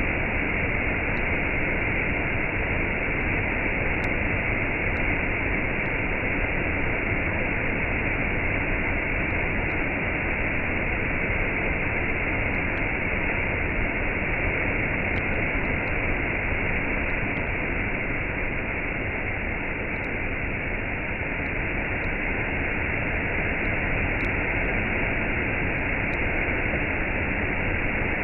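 Waterfall and cascade: water falling and rushing in a steady, unbroken roar of noise.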